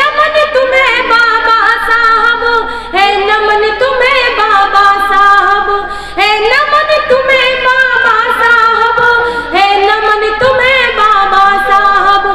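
A woman singing a Hindi song solo through a stage microphone, holding long notes with a wavering pitch in phrases a few seconds long.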